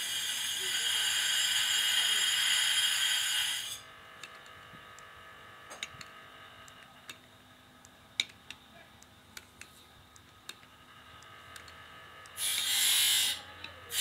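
A machine runs with a steady, high whine and cuts off abruptly about four seconds in. Scattered sharp clicks from a hand tool working the belt follow, and the machine noise returns in short bursts near the end.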